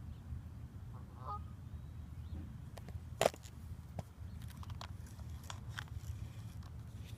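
A bird's short honking call about a second in, then a sharp knock a little after three seconds, the loudest sound, followed by a few lighter clicks, over a steady low rumble.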